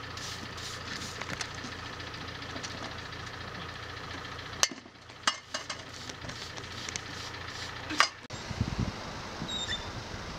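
Steady engine hum of idling vehicles, broken by a few sharp clicks or knocks, then from about eight seconds in, wind buffeting the microphone.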